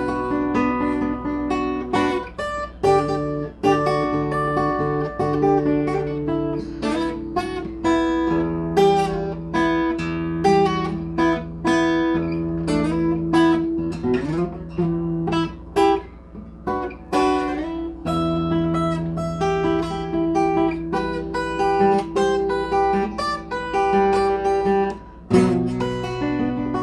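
Acoustic guitar being strummed and picked, playing a run of chords that change every few seconds.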